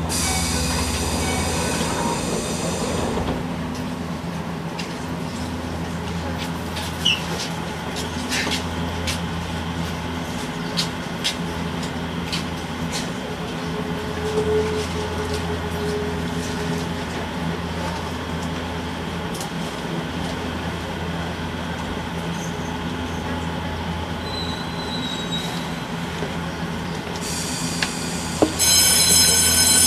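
Enoshima Electric Railway 1000-series railcar standing at a station platform, its onboard equipment giving a steady low hum, with scattered clicks. A high ringing tone sounds in the first three seconds and again for the last second and a half.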